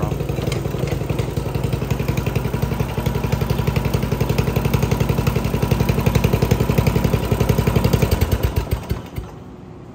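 Murray riding lawn tractor's engine running steadily, then shut off about nine seconds in, its firing slowing to a stop.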